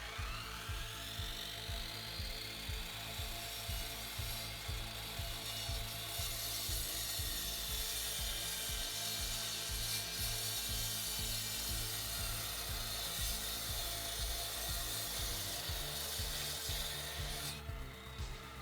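Power tool cutting into masonry: it spins up with a rising whine, grinds steadily, then stops suddenly about a second before the end.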